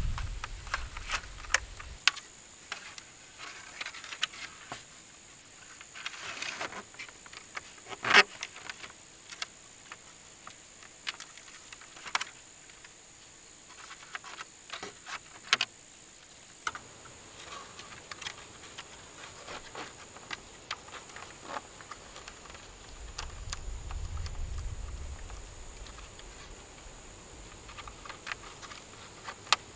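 Bamboo poles and thin tying strips being handled as crossings of a bamboo trellis are lashed by hand: scattered light clicks, taps and rustles, with one sharp knock about eight seconds in. A steady high insect drone runs underneath.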